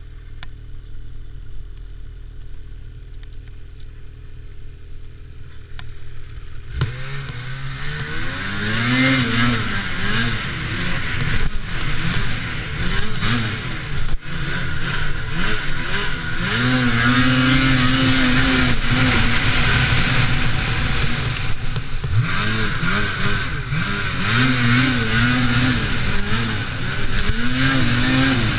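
Lynx Rave RE 850 E-TEC snowmobile's two-stroke twin-cylinder engine running low and steady, then about seven seconds in it opens up. Its revs rise and fall again and again as the sled rides, under a steady rush of noise.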